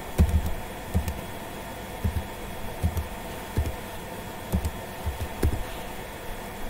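Keystrokes on a computer keyboard as a phone number is typed in: short, irregular taps about one to two a second, over a faint steady hum.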